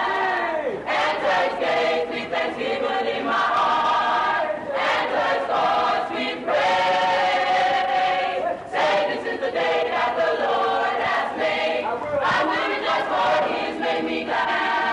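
A choir singing together, holding long notes in phrases with short breaks between them.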